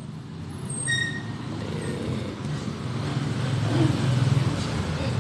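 A vehicle engine running with a low rumble that grows louder from about a second in. A short metallic ping sounds about a second in.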